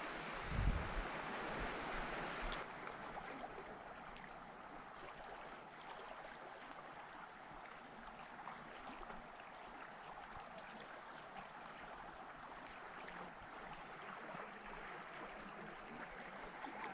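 Flowing river water, a steady rushing hiss. A low thump comes about a second in, and near three seconds in the sound changes abruptly to a quieter, duller river flow that stays steady.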